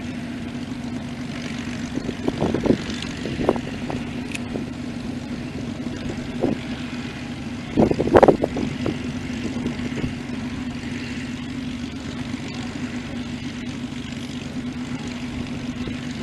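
Steady drone of WWII piston-engined propeller aircraft flying a display, with a few brief knocks, the loudest about eight seconds in.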